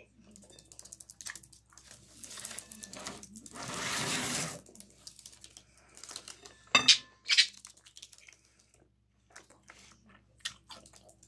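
Tabletop handling noises: a rustling, scraping noise for a couple of seconds, then two sharp knocks about half a second apart as utensils or dishes are set down. Light clicks and crunches follow as a pickled cucumber is bitten near the end.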